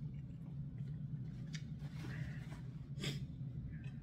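Quiet room tone with a steady low hum, broken by a few soft clicks from hands and food at a plate, the clearest about three seconds in, and a soft hiss a little after two seconds.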